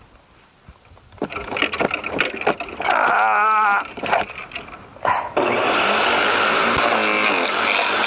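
Garden wood shredder chewing on a thick branch forced into its chute: cracking and knocking, a wavering labouring pitch around the middle, then loud steady grinding from about five seconds in.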